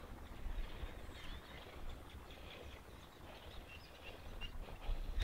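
Quiet outdoor ambience: a steady low rumble of wind on the microphone, with a few faint, short bird chirps.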